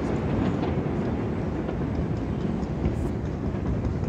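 Fireworks going off in a rapid, continuous barrage, the bursts running together into a steady rumble with fine crackling through it.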